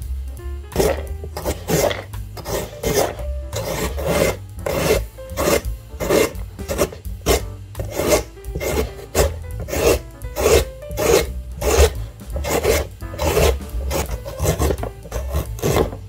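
Carrot being rubbed back and forth over the metal blades of a plastic julienne shredder, a rasping stroke about twice a second.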